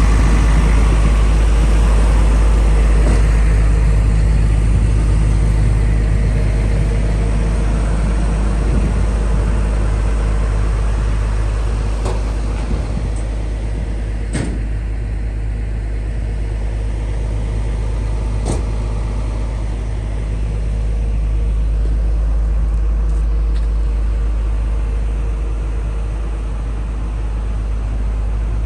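Komatsu PC210-10M0 excavator's diesel engine running steadily at a low idle, with a few sharp clicks about twelve, fourteen and eighteen seconds in.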